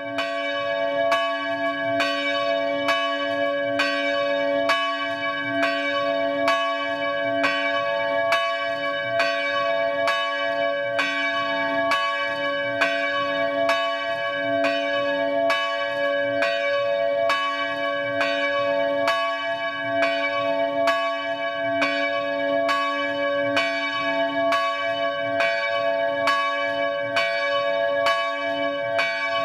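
Church bells ringing, struck in an even rhythm of about two strokes a second, their hum sounding on between strokes.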